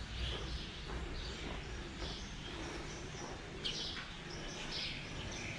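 Birds chirping, short calls repeating every second or so, over a steady low outdoor background noise.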